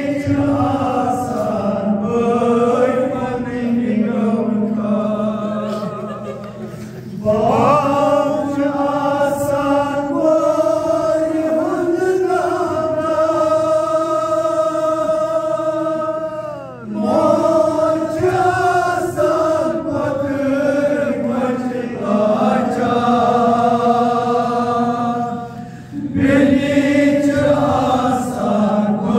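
A man singing a Kashmiri noha, a Shia mourning lament, unaccompanied, in long drawn-out melodic lines with three short breaks.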